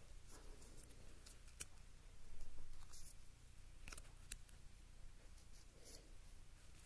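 Pokémon trading cards being handled on a stack: faint flicks and clicks of card edges as cards are slid off the top, with a louder swishing rustle about two and a half seconds in.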